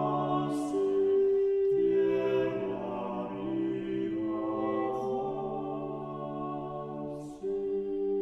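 Slow background music of sustained, overlapping held chords that change every second or two.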